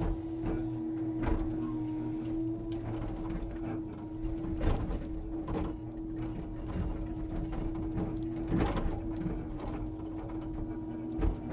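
Timber truck's hydraulic loading crane at work: a steady hydraulic whine, with irregular knocks and clunks scattered through it.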